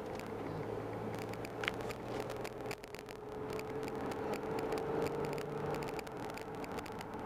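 A car driving along a highway, heard from inside the cabin: a steady engine and road hum with a few light clicks.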